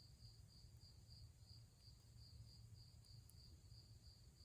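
Faint cricket chirping in an even, steady rhythm of about two to three chirps a second, over a low background rumble.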